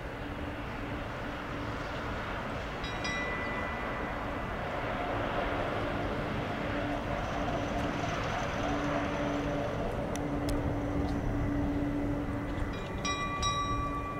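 Airbus A340's four CFM56 turbofan engines at takeoff thrust as the airliner climbs away, a steady jet rumble with a droning low tone that grows a little louder toward the middle and eases near the end.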